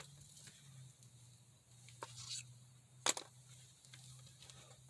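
Faint low steady hum with a few small clicks and rustles, the sharpest click about three seconds in.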